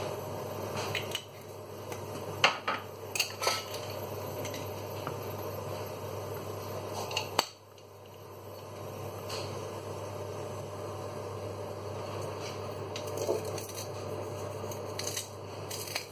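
Cookware and kitchen utensils being handled: scattered light clinks and knocks, clustered a couple of seconds in and again around seven seconds, over a steady low hum.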